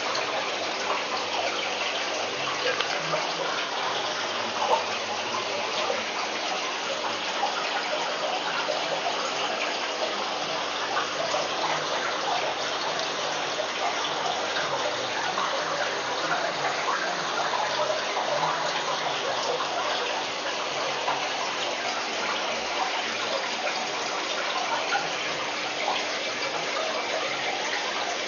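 Steady running and splashing water from aquarium filtration, over a low steady hum.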